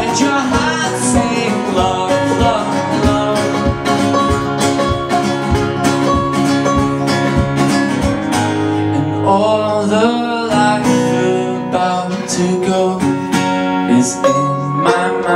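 Live acoustic band: strummed acoustic guitar and a picked banjo with other plucked strings, and a man singing over them.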